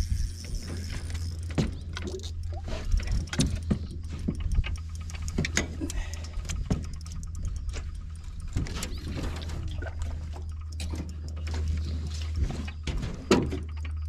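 Scattered knocks and clatter on an aluminium jon boat's deck and splashing water as a fish is fought and brought to the boat on a bent rod, over a steady low hum.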